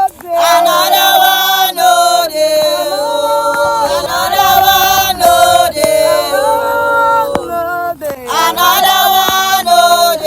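Several voices singing together in a chant-like worship song, holding long notes that slide between pitches.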